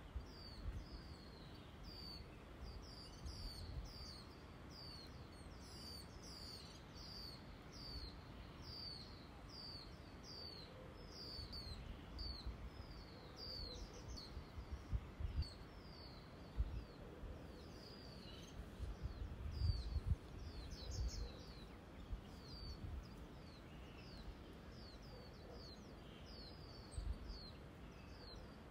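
A small bird chirping over and over, about two short high chirps a second, while gusts of wind buffet the microphone in low rumbles that peak several times, loudest a little past the middle.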